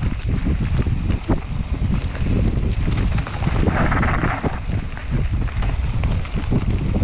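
Wind buffeting the microphone of a mountain bike riding singletrack, with the steady knocks and rattles of the bike over rough ground. A brief hiss about four seconds in.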